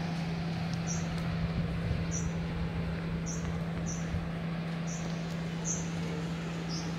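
Short high chirps, about one a second at irregular gaps, over a steady low electrical-sounding hum at one pitch.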